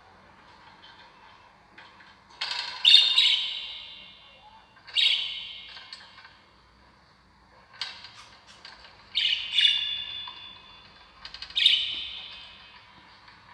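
A bird calling loudly and repeatedly: about five sharp, high calls, some doubled, each trailing off over a second or so, a few seconds apart.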